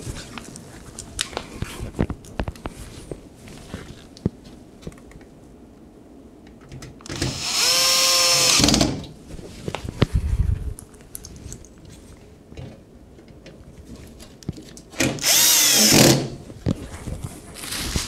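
Cordless screwdriver running in two short bursts, about seven and fifteen seconds in, driving the two screws back in, its motor whine shifting in pitch. Light clicks and handling knocks between the bursts.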